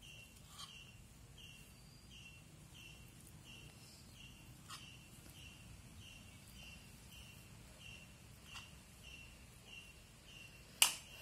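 Faint, steady chirping in the background, one short high chirp about every half second. A few soft clicks, and one sharp click near the end.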